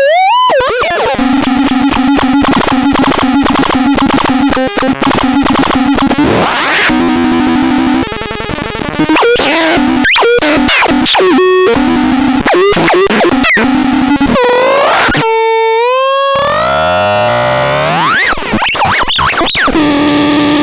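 Veverka Rodí synthesizer making harsh, buzzy noise tones: a droning note chopped into rapid pulses, with swooping pitch glides. About three-quarters of the way through, a cleaner held tone sounds, followed by rising glides.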